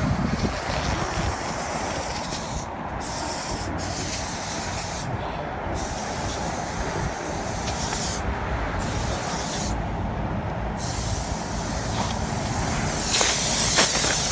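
Air duct cleaning equipment running: a steady machine rumble under a hiss of blowing air that cuts out briefly about five times and grows louder near the end.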